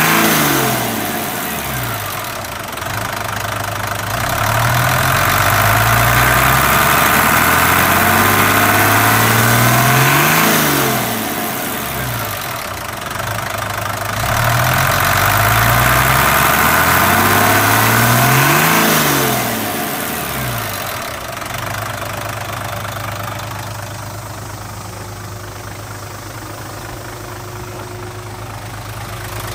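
Mitsubishi Fuso 6D17 inline-six diesel engine coming off a rev, then revved up and held twice, dropping back each time. It settles into a steady idle about two-thirds of the way through.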